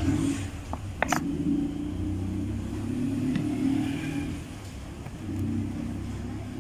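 A steady low engine-like hum, with a couple of short sharp clicks about a second in.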